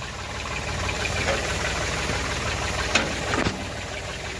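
Tractor diesel engine idling with a steady clatter; two brief knocks about three seconds in.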